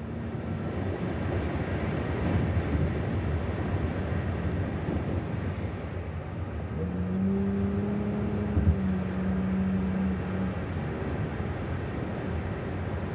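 Road and engine noise of a moving car heard from inside the cabin: a steady low rumble. A pitched hum joins for a few seconds midway, with a single small knock near its end.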